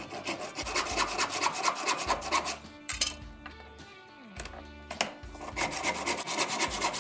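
Handsaw cutting across a hardwood block held in a vise, in quick back-and-forth strokes. The sawing stops for a couple of seconds in the middle, with a knock or two as the block is turned in the vise, then starts again near the end.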